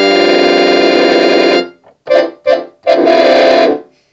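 Everest electronic keyboard playing a dense, held dissonant chord as a dramatic film-style sound effect; it cuts off about a second and a half in, followed by two short stabs and one more held chord.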